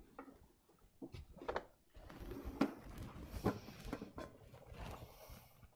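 Faint kitchen handling sounds: a drawer being worked, then a few separate light knocks and clatters as cloths and a cooking pot are handled.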